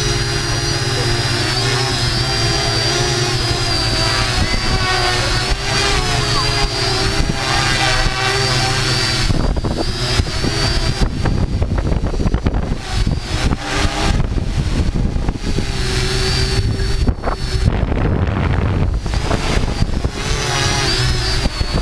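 Multirotor drone's electric motors and propellers whining, heard from the camera on board, several pitches held steady with a slight waver. From about nine seconds in the sound turns rough and gusty in the low end, and the whine drops back under it.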